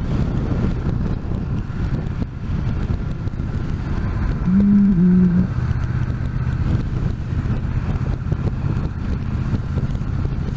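Triumph T120 motorcycle running steadily on the road, picked up by a helmet microphone with low wind rumble. A short two-part tone sounds near the middle, and a steady low engine tone carries on after it.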